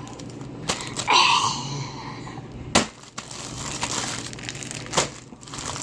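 Slime being squeezed and handled, making crinkly, squishy noises with three sharp clicking pops spread through it.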